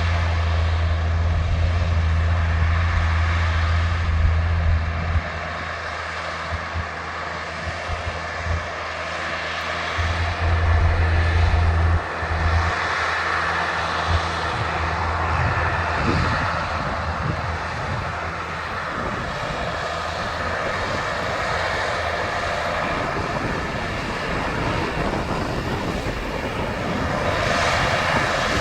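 Large farm tractors' diesel engines running, a steady mechanical hiss over a deep engine drone that is loudest for the first five seconds and again about ten to twelve seconds in.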